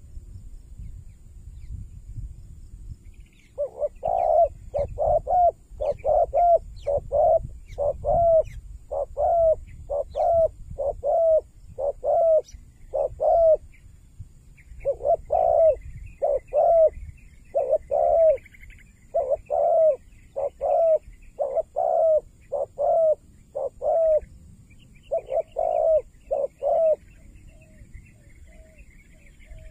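Spotted dove cooing: a long run of short, low coos, about two a second, broken by a few short pauses. Faint high twittering of small birds runs under it.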